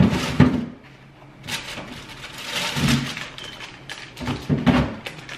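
Thumps and knocks with some rustling as groceries are handled and put away in a refrigerator: two knocks at the start, another about three seconds in and a quick cluster of three near the end.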